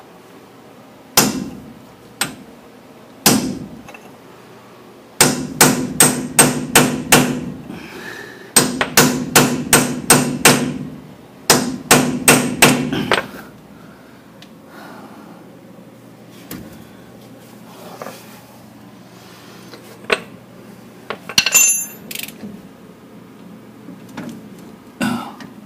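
Ball-peen hammer striking metal, each blow ringing briefly: a few single blows, then three quick runs of about three to four blows a second, and later a few lighter metallic clinks.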